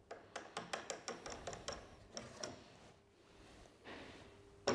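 Altendorf WA80 TE's overhead blade guard being moved by hand, giving a quick run of faint clicks, about a dozen in the first two seconds, then a soft knock at the end.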